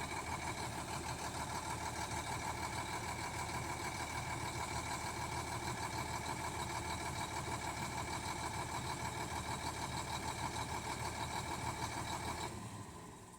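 Bulldozer's diesel engine idling with a steady, even pulse, then stopping near the end.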